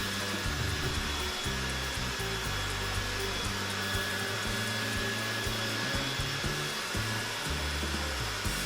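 Dyson vacuum cleaner running steadily with a high whine, over background music with a bass line.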